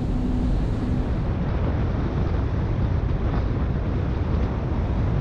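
Riva 68 Diable motor yacht running at speed, about 33 knots: a loud, steady rumble of engine drone, rushing water and wind buffeting the microphone.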